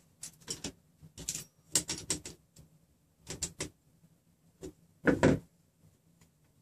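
Scattered clicks and clatter of hands turning nuts and a wrench on the steel threaded rods of a RepRap Prusa Mendel frame, with a louder knock about five seconds in.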